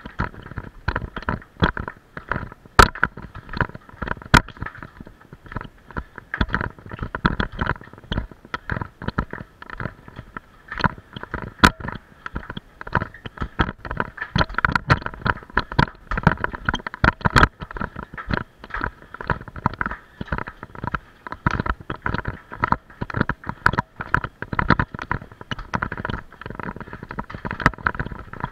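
Bicycle rattling and clattering as it rolls down stone steps and over cobbles: a dense, irregular stream of knocks from the bike and its mounted camera, with a few sharper cracks standing out.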